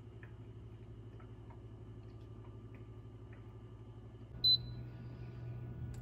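Yokekon cool-warm mist humidifier running with a low steady hum, which gets a little louder about four seconds in. Shortly after, its touch control panel gives a single short high beep.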